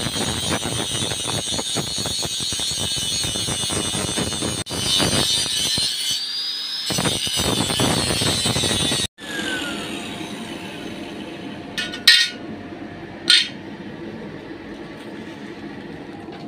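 Angle grinder with a cut-off disc cutting through old saw-blade steel, a loud steady high whine with grinding noise, its pitch climbing slightly as the cut goes on. About nine seconds in the grinder stops and its whine falls away, followed by two sharp metallic knocks.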